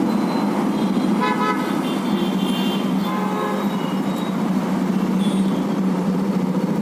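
Road traffic noise with vehicle horns tooting briefly about a second in and again around three seconds, over a steady hum.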